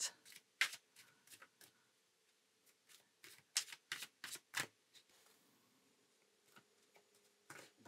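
A large deck of oracle cards being shuffled hand to hand: faint, quick flicks and slaps of card stock in scattered clusters, busiest between about three and a half and five seconds in.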